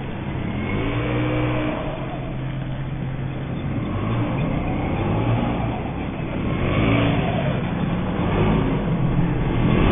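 Small two-stroke petrol engine of a 1:5-scale RC rally car revving up and down, its pitch rising and falling with the throttle.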